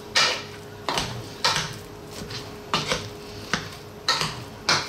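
Metal potato masher working through mashed potato in a nonstick pot, clacking against the pot about seven times at an uneven pace.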